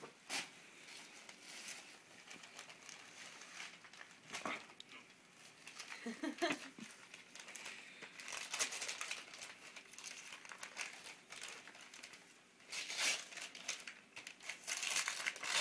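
Tissue paper crinkling and rustling in small hands as a present is unwrapped, in spells that grow busier in the second half.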